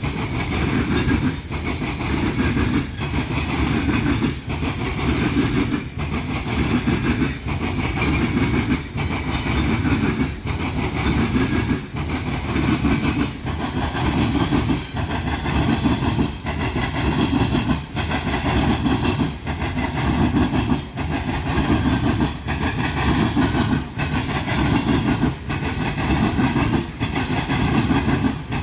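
Loaded coal hopper cars of a freight train rolling over a newly installed railroad crossing diamond, their wheels clattering across the crossing gaps in a steady, evenly repeating rhythm over a continuous rumble.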